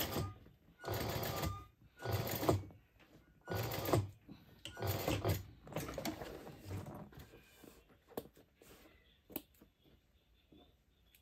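Juki industrial sewing machine stitching a purse gusset seam in short runs, six or seven brief bursts a second or so apart. After about seven seconds it stops, leaving only a few light clicks.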